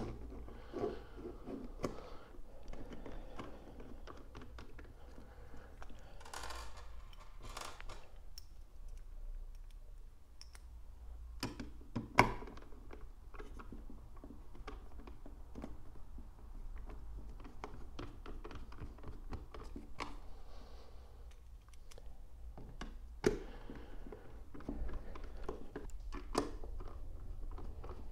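Torx 25 screws being driven by hand with a screwdriver through a mounting plate into the base of a soft tank bag: scattered small clicks, creaks and rustles of the screws, plate and bag, with two sharper knocks about twelve seconds in and again near the end.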